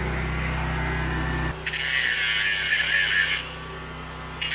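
A steady low machine hum that cuts off abruptly about a second and a half in, followed by a power tool whirring and cutting metal in short, abruptly edited bursts.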